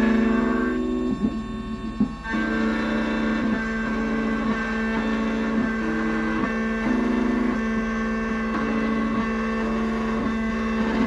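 Triton electronic key machine cutting a key: the cutter spindle hums steadily while the stepper-driven carriage whines in pitches that step up and down every half second or so as it moves along the blade.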